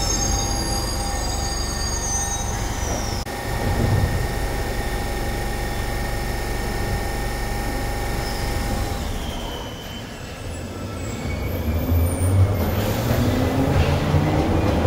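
Glasgow Subway trains in the station: a train's wheels squeal on the rails during the first three seconds, then a steady rumble and hum, and from about twelve seconds in a train pulls away with its motor whine rising in pitch as it speeds up.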